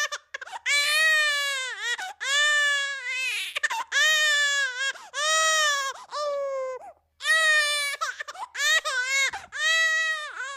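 Cartoon crying sound effect: a high-pitched, exaggerated wail repeated as sobbing cries of about a second each, each dipping and rising in pitch, with a brief break about seven seconds in.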